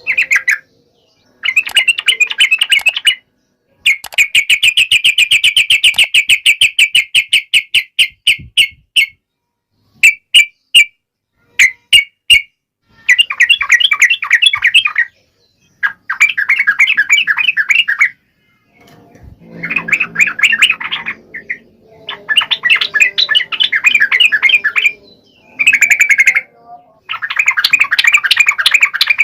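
Yellow-vented bulbul (trucukan) singing in loud, rapid chattering phrases of one to three seconds, separated by short pauses. There is one longer, even run of quick notes lasting about five seconds, followed by a few single sharp notes.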